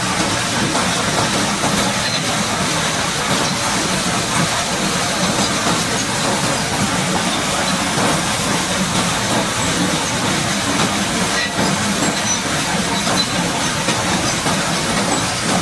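High-pressure water jet hissing steadily as it sprays the bulldozer, with an engine running underneath.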